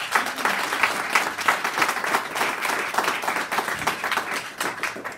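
Applause from a small audience and the panel: many people clapping their hands at once.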